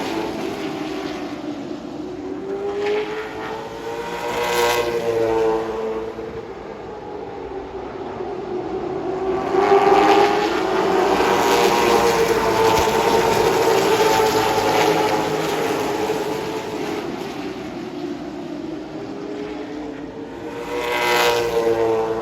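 Late model race car's V8 engine under racing load, heard from on board, its pitch climbing as it accelerates down the straights and falling as it lifts for the turns. It pulls up about four seconds in, holds a long full-throttle run through the middle, and climbs again near the end.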